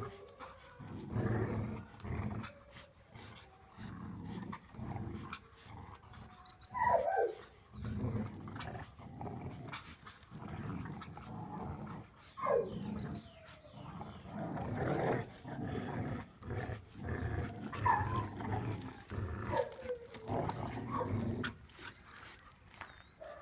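Dogs growling in repeated bursts while playing tug-of-war over a rope toy, with a few short high cries that fall in pitch.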